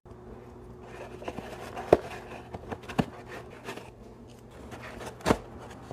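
Empty plastic lip balm tubes being pushed into the cups of a cardboard egg carton: light scraping and rustling of cardboard, with three sharper taps, the last one the loudest.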